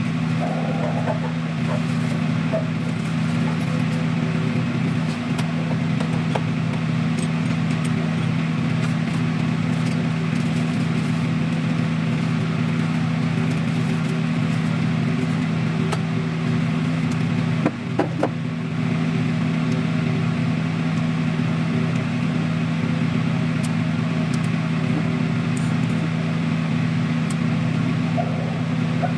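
A steady low machine hum, with a brief knock about two-thirds of the way through.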